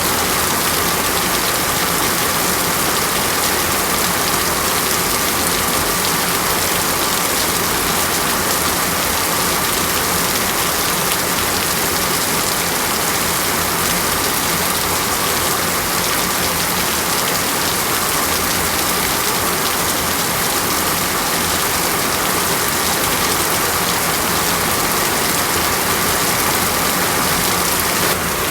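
Heavy tropical rain falling steadily, an even hiss of downpour with a faint steady tone underneath.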